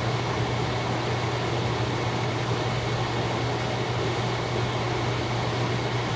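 A fan running with a steady low hum and an even airy hiss.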